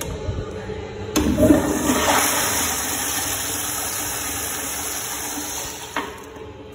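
Commercial toilet with a chrome flushometer valve flushing: a sudden loud rush of water about a second in that eases off over several seconds, then a sharp click near the end.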